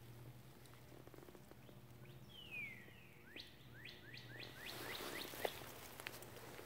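A songbird singing: one falling whistled note, then a quick run of about eight short rising notes, some four a second. A faint steady low hum runs underneath.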